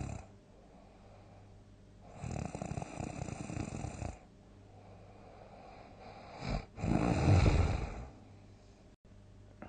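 A person snoring loudly: two long snores of about two seconds each, the second the loudest, with softer breathing between them.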